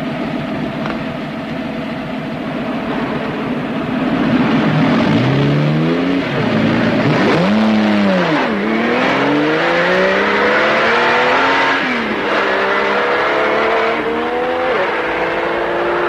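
Lamborghini Miura's V12 engine revving, its pitch swinging up and down in quick arcs. It then accelerates hard with a climbing pitch that drops back at gear changes about twelve and fifteen seconds in.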